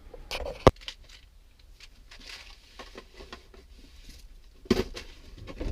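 Small handling noises in a small room: one sharp click under a second in, faint scattered rustling and tapping, then a short knock near the end.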